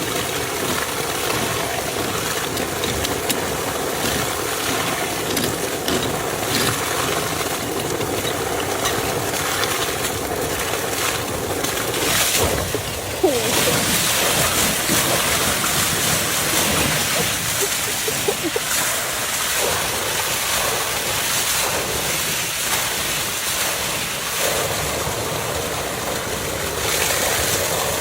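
Steady rushing water: a loud, even hiss, a little louder for a moment about halfway through.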